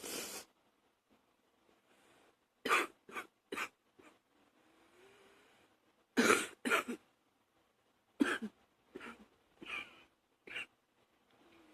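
A woman's morning coughing fit: a group of three coughs, then two louder ones, then four softer ones, with breaths drawn in between the bouts.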